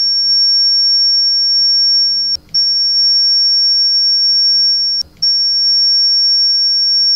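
Smartphone metal-detector app's internal generator giving out a steady, loud, high-pitched 5500 Hz sine tone, the signal meant to drive the detector's transmitter coil. The tone breaks off briefly twice, about two and a half seconds apart.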